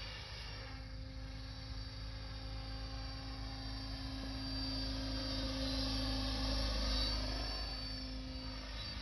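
Mikado Logo 800 Xxtreme electric RC helicopter in flight: its rotor and motor give a steady hum and whine that grows louder about five seconds in, then eases off near the end.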